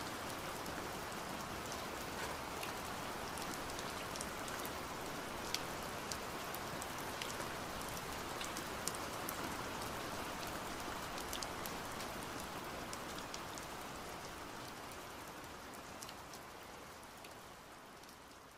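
Steady patter of rain with scattered sharp drip-like clicks, fading out gradually over the last few seconds.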